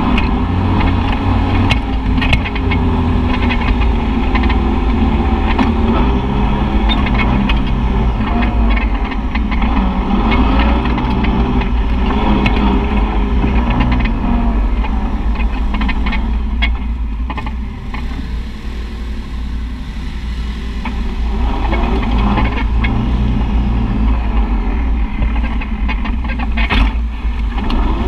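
Side-by-side UTV engine running while driving a muddy trail, its pitch rising and falling with the throttle. It eases off for a few seconds past the middle, then picks up again. Occasional knocks come from bumps.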